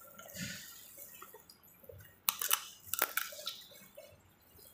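Close-up eating sounds from a seafood boil: wet chewing and squishing as crab and shellfish are eaten by hand, with a few sharp cracks of shell being pulled apart, a little after two seconds in and again at three seconds.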